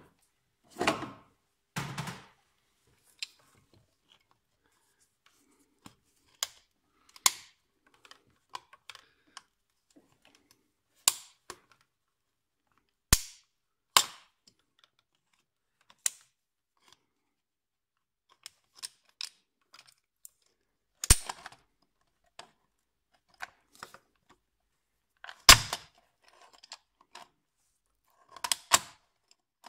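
Irregular sharp clicks and knocks of hand tools and parts being handled during work on an engine, one every second or two, with quiet between.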